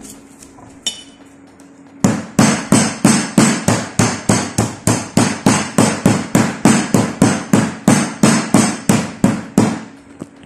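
Metal meat tenderizer mallet pounding a chicken breast through plastic wrap on a plastic cutting board, a steady run of blows about four a second. It starts about two seconds in and stops near the end, flattening and softening the meat.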